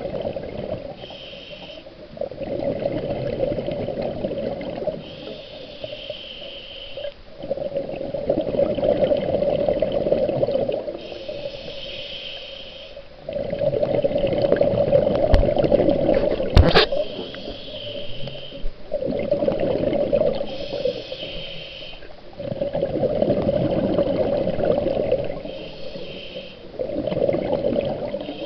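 Scuba diver breathing through a regulator underwater: a short hiss at each inhale, then a longer gurgling burst of exhaled bubbles, about five breaths in a steady rhythm. Two sharp clicks just past the middle.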